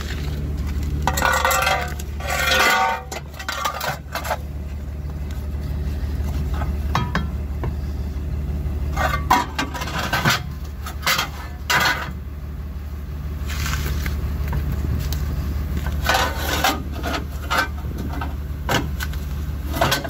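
Metal clanking and scraping in three bouts as a drooping pickup drive shaft is worked by hand underneath the truck, over a steady low engine hum.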